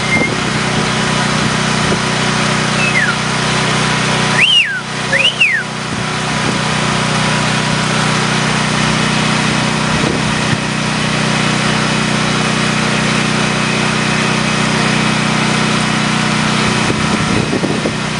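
Hurricane wind and rain rushing steadily, with a steady low hum underneath. A few short whistling glides rise and fall about three to five seconds in, where the rush briefly drops.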